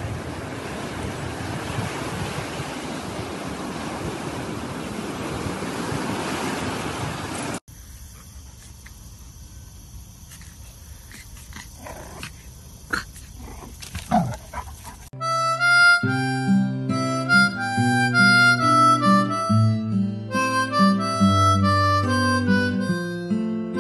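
Surf washing on a beach with wind on the microphone for the first seven seconds or so. After a sudden cut there is a quieter stretch with a few short dog yips about five seconds later. From about fifteen seconds in, loud harmonica music plays.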